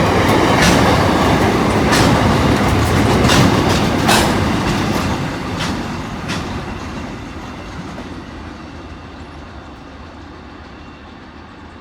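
Freight train wagons rolling past with wheels clacking over rail joints, loud at first, then fading steadily from about four seconds in as the train moves away.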